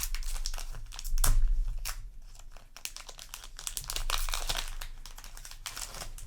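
Foil booster pack wrapper crinkling and tearing as it is handled and ripped open, an irregular crackle throughout.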